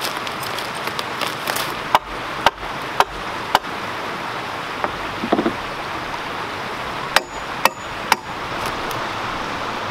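Wooden poles being knocked and struck while being set in place: four sharp knocks about half a second apart, then three more a few seconds later, with a short squeak about halfway. Under it runs the steady rush of a shallow creek.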